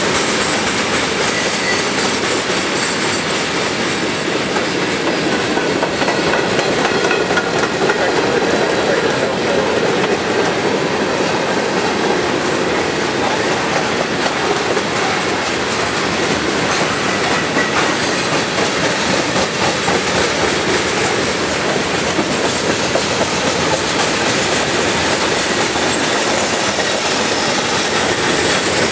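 Freight train of tank cars rolling steadily past at close range: a continuous rumble of wheels on rail with rhythmic clicking as the wheels cross the rail joints.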